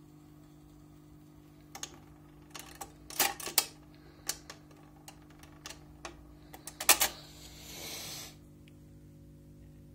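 A portable record player's autochanger cycling at the end of a 45: a run of irregular mechanical clicks and clacks as the tonearm lifts and swings, loudest about three seconds in and again about seven seconds in, over a steady hum from the player. A brief hiss follows about eight seconds in.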